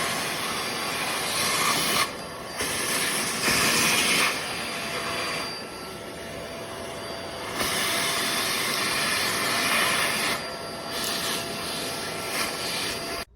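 Tineco Pure ONE S11 cordless stick vacuum running: a steady motor whine with rushing air, getting quieter and louder several times, then cutting off suddenly near the end.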